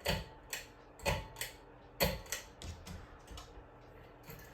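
Irregular sharp clicks and knocks, about eight of them, from hard parts being handled and set down.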